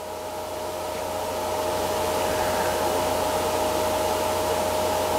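Steady whir of a motor-driven fan moving air, with a constant hum running through it. It grows louder over the first two seconds, then holds steady.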